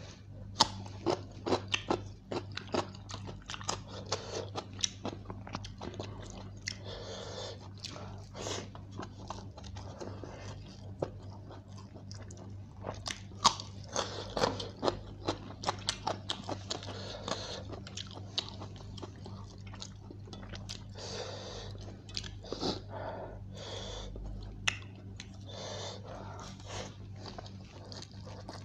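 Close-miked eating: crunchy bites and chewing, with wet mouth and lip sounds, as a man eats chicken biryani by hand. Crisp crunching in the first few seconds, from bitten cucumber. A steady low hum runs underneath.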